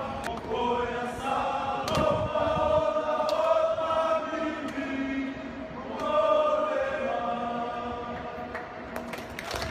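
A group of men singing a Fijian song together in harmony, unaccompanied, with slow, held chords.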